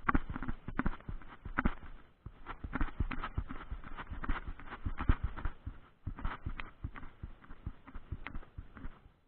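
Hooves of a ridden Egyptian mare knocking and clattering on the ground in an irregular run of thuds. The sound cuts off abruptly near the end.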